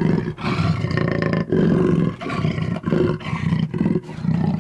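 Jaguar roaring and growling: a run of deep roars, each about a second long, with short breaks between them.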